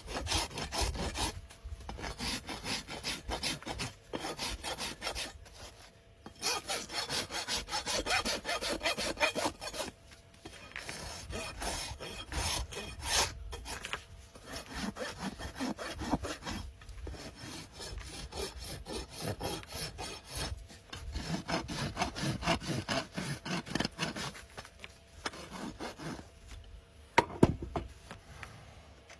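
Farrier's rasp filing a horse's hoof in bouts of rough, repeated strokes, with short pauses between bouts and a sharp knock near the end.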